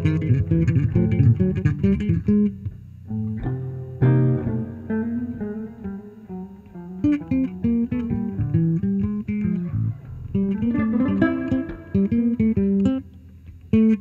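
Electric guitar and electric bass duo playing an instrumental piece: plucked notes on a hollow-body archtop electric guitar over an electric bass line, thinning out briefly about three seconds in and again near the end.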